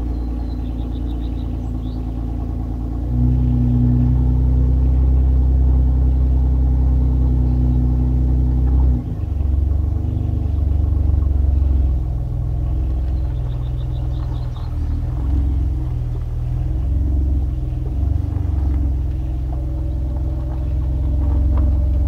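2001 Nissan Maxima's 3.0-litre V6 with the muffler deleted, running at low rpm with a loud, unmuffled exhaust rumble. The level steps up about three seconds in and dips briefly just before nine seconds.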